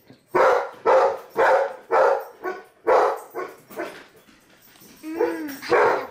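A dog barking repeatedly, about two barks a second, then a short pause and a couple more barks near the end.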